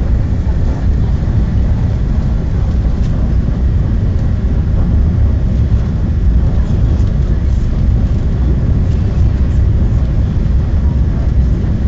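Inside a TGV Atlantique high-speed train running at speed: a loud, steady low rumble of cabin noise.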